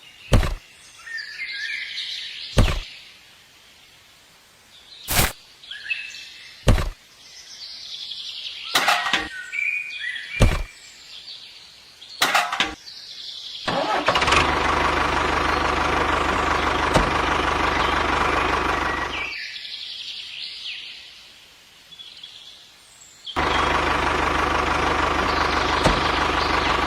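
A small motor running steadily in two stretches, about halfway through and again near the end, after a series of sharp clicks and short bird chirps.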